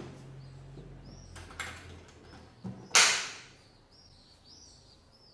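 A few knocks and clacks as the closed wooden folding camping table and its elastic cords with metal hooks are handled. The loudest, sharpest clack comes about three seconds in and fades over most of a second. Birds chirp faintly in the background.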